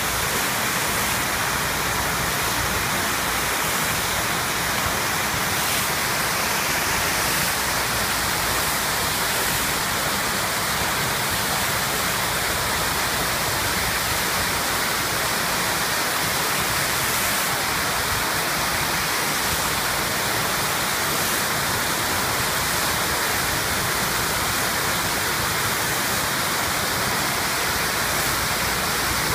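Steady, unbroken rushing of running water, with no change in level.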